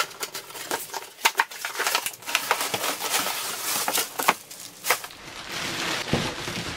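Cardboard box being slit open along its packing tape with a utility knife and its flaps pulled back: a run of sharp, irregular cracks and scrapes. From about five seconds in, steady crinkling of a plastic bag as the wrapped rubber floor mat is drawn out of the box.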